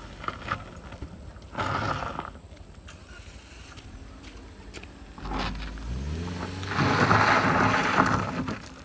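A vehicle engine revving on a rough dirt road. A short rush of noise comes about a second and a half in. Around five seconds in, an engine revs up with rising pitch and swells into a loud stretch of engine and road noise over the last two seconds.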